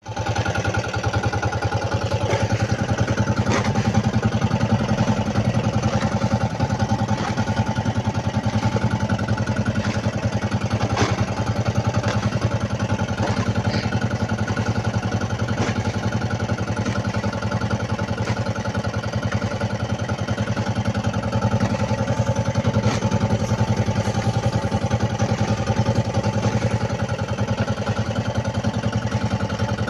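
Outrigger boat's engine idling steadily with a fast, even beat.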